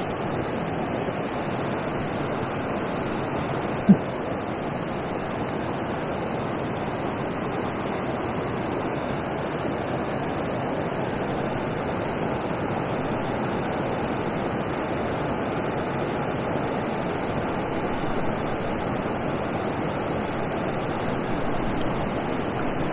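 Steady rush of water pouring over a river weir, an even roar. A single brief knock about four seconds in.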